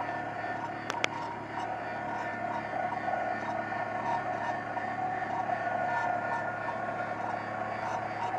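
Fishing boat's motor running steadily, a constant drone with a steady pitch. Two sharp knocks about a second in.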